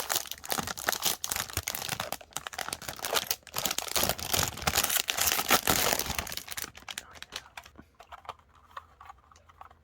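Plastic wrapping crinkling and tearing as it is pulled off a keyboard, dense and busy for about seven seconds, then thinning out to a few light handling clicks.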